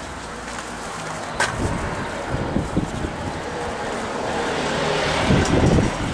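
Outdoor street ambience with wind rumbling on the microphone, a single sharp click about a second and a half in, and the noise swelling louder toward the end.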